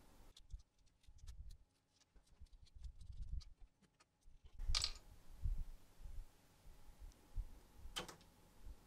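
Small clicks, taps and soft knocks of hands working on a 3D printer's print head while unplugging its cable connectors. Two sharper clicks stand out, about five and eight seconds in.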